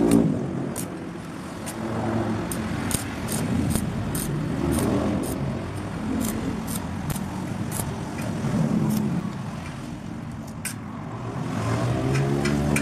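Stainless steel knife blade scraping and clicking against the edge of a metal bar in short, quick strokes, about two or three a second. Under it, a steady rumble of passing road traffic swells and fades.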